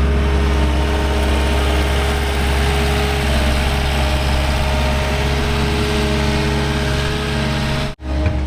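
Caterpillar skid steer's diesel engine running at a steady speed. The sound drops out for an instant near the end, then carries on.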